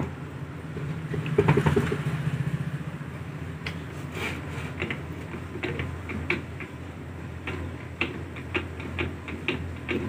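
Hand-cranked geared sharbat-blending machine running, its gearbox whirring and the blades churning liquid in the jar, with scattered clicks and knocks from the mechanism. The whir is strongest and fastest in the first few seconds. The freshly repaired gearbox turns without jamming.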